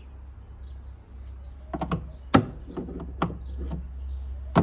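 Sharp clicks and knocks of plastic parts being handled and pulled at while an old semi-automatic washing machine is taken apart, starting a little under two seconds in, the loudest about halfway through, with a few more near the end.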